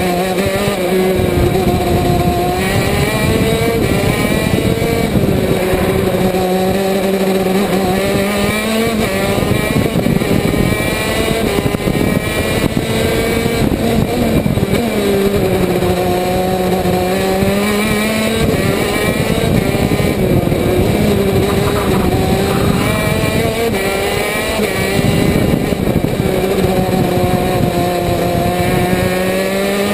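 KZ2 kart's 125cc two-stroke gearbox engine at race speed, heard onboard, its pitch climbing for several seconds at a time and then dropping, again and again through the lap.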